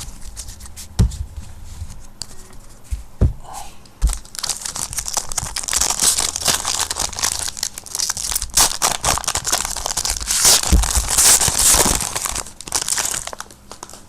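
A trading-card pack wrapper being torn open and crinkled. A few soft knocks come in the first few seconds, then dense crackling and tearing runs through most of the rest, dying away just before the end.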